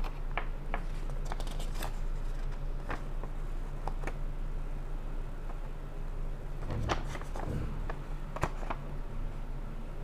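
Paper rustling and crinkling in short, scattered crackles as a folded instruction leaflet is handled and turned, with a busier stretch of handling about seven seconds in, over a steady low hum.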